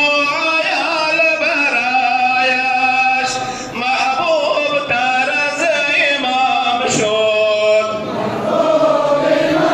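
A group of male voices chanting together in unison, in long melodic phrases with short breaks between them.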